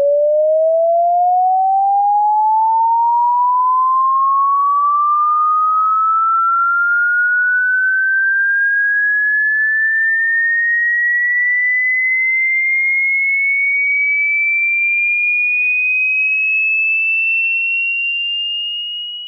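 A single pure electronic sine tone sweeping slowly and smoothly upward in pitch, from a mid hum to a high whine, then fading and cutting off at the very end.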